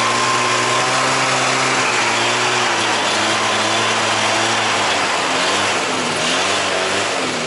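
Two-stroke snowmobile engine running, steady for the first few seconds, then its pitch wavering up and down as the revs change near the end.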